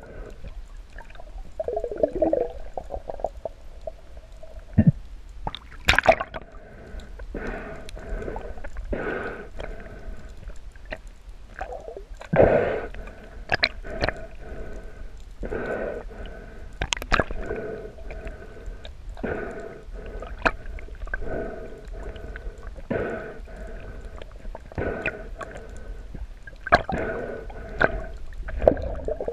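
Underwater water noise: swishing surges roughly once a second, with scattered sharp clicks among them.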